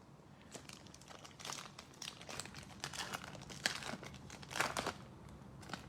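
Faint, irregular rustling and crinkling of trading cards and their plastic pack wrapping being handled and flipped through, with light clicks scattered throughout.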